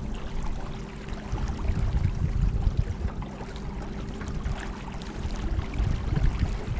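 Steady hum of a 50-pound-thrust electric trolling motor pushing a small boat, over an uneven low rumble of moving water.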